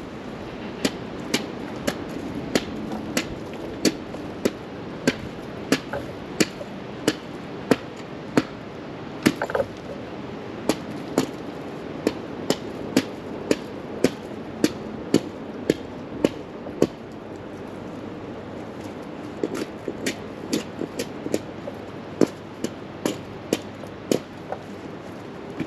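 Rhythmic chopping: sharp, evenly spaced strikes about every 0.6 seconds, stopping for about two seconds past the middle, over a steady rush of background noise.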